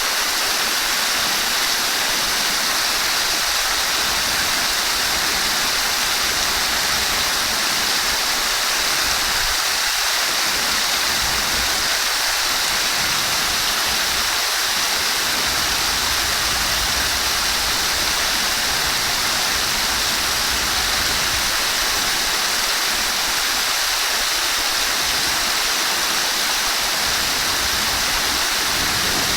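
Running water rushing steadily: an even, unbroken hiss that stays at the same level throughout.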